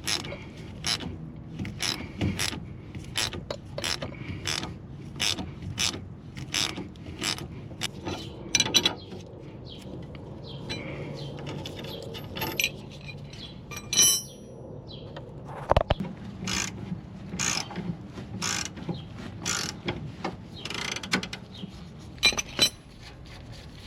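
Ratcheting wrench clicking in repeated short strokes, about two a second, working the nut off a sway bar end link. There is a metallic clink that rings briefly about halfway through, followed by a sharp knock.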